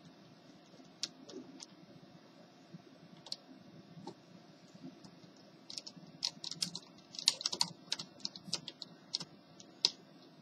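Small sharp plastic clicks and taps of fingers and a small screwdriver working the screws on the plastic underside of an HP 6530b laptop. A few clicks at first, then a quick, louder run of clicks over the last four seconds.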